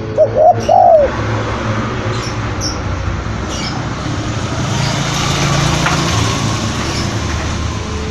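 Spotted dove (tekukur) cooing: a short phrase of a few coos, the loudest sound here, about a second in. A steady background rush with a low hum follows, with a few faint small-bird chirps.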